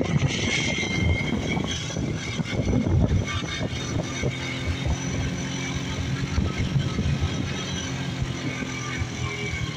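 Small motorcycle engine running steadily while riding along a road, with wind buffeting the microphone, heaviest in the first few seconds.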